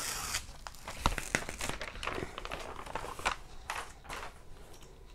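Protective plastic film being peeled off the adhesive of a diamond painting canvas, crinkling and crackling in short bursts. It is densest at the start, turns sporadic, and eases off near the end.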